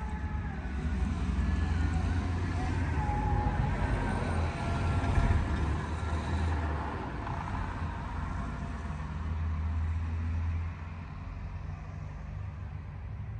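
A van passing on the road. Its noise builds to a peak about five seconds in and then fades, over a steady low rumble.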